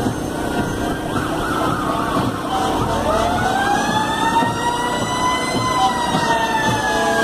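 Emergency vehicle sirens wailing in a parade: about three seconds in, one siren rises slowly in pitch for a couple of seconds and then falls away slowly, over the lingering fall of an earlier wail.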